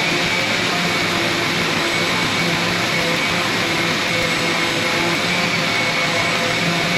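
Steady, unbroken noise of an electric power tool or motor running, with a constant whine in it.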